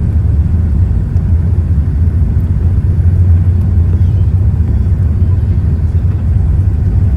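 Boeing 787-9's Rolls-Royce Trent 1000 engines and airflow during takeoff, heard inside the cabin as a steady, loud, deep rumble.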